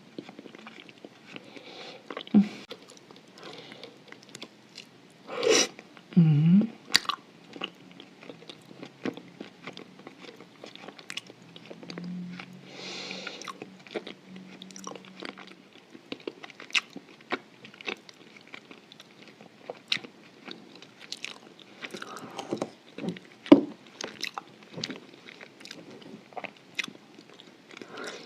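Close-up crunching and chewing of chalk coated in white clay paste: many sharp, irregular crunches as the chalk is bitten and ground between the teeth, with a couple of louder mouth sounds about five and six seconds in.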